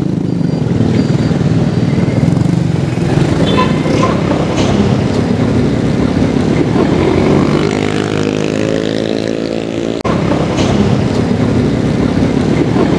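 Road traffic while riding along a city street, with a steady vehicle engine running. Between about 8 and 10 seconds an engine's pitch climbs as it speeds up.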